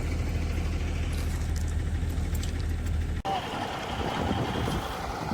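Vehicle engine running with a steady low hum, which cuts off abruptly about three seconds in and gives way to a rougher, noisier rumble.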